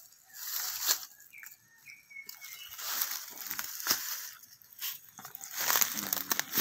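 Footsteps crunching and rustling through dry bamboo leaf litter, in irregular crackling bursts.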